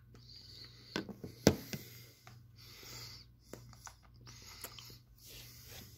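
A man breathing in and out around a hard-candy lollipop held in his mouth, with wet mouth clicks as he sucks on it and one sharp click about a second and a half in.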